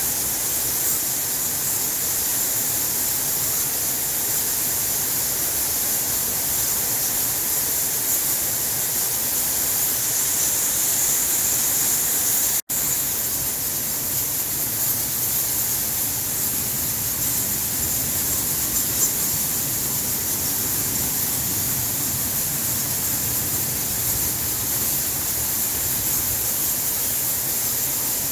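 Massed chittering and squeaking of a large bat colony inside a cave, a dense, steady high-pitched hiss. It cuts out for an instant about halfway through.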